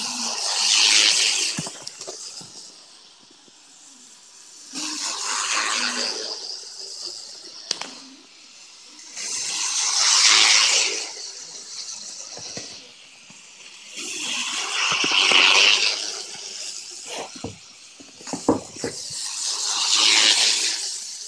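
N-gauge model train running fast around a small loop of track, its motor and wheels swelling to a rushing hiss each time it passes close by. Five passes come about five seconds apart.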